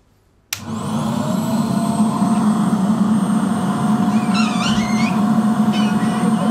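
A vacuum cleaner switched on about half a second in: its motor spins up with a rising whine and settles into a steady, loud whine over a rush of air through the plastic pipe. A brief high-pitched squeal cuts in over it about four seconds in.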